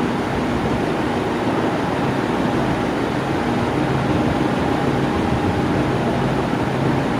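Electric fan running steadily: an even rush of moving air with a faint low motor hum.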